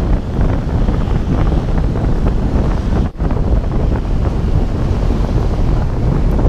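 Loud wind buffeting the microphone of a camera mounted on the hood of a moving car, over the car's road noise. The sound dips out for an instant about three seconds in.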